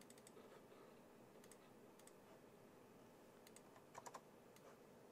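Near silence with faint scattered computer mouse clicks, and a quick cluster of louder clicks about four seconds in as icons are opened.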